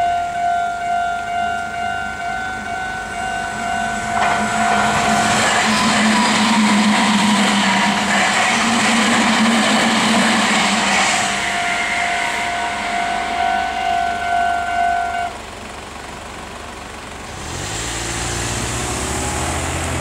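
Japanese level-crossing alarm bell dinging in a fast, steady repeat while a Meitetsu 3500-series electric train, two sets coupled, passes through the crossing with a rush of wheel and motor noise lasting about seven seconds. The bell stops about three-quarters of the way in, and near the end a car's engine is heard as it pulls across the tracks.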